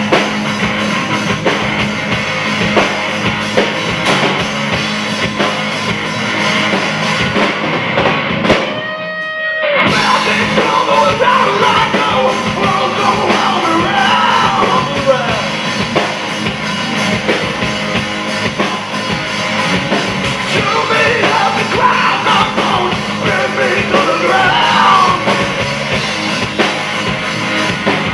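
Rock band playing live: electric guitars and drum kit with a male singer. About nine seconds in the band cuts out briefly, leaving a single held note ringing, then comes crashing back in.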